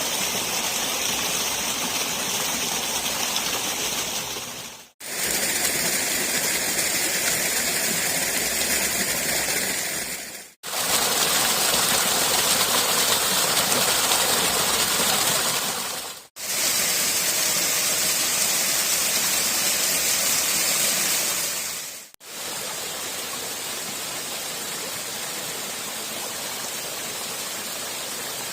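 Steady rushing, hissing noise of running water, in five stretches of a few seconds each, cut apart by brief gaps.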